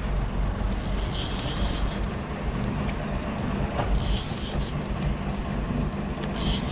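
Sport-fishing boat's engine running steadily, with three short raspy spells from a big conventional fishing reel working under the load of a hooked dorado (mahi-mahi).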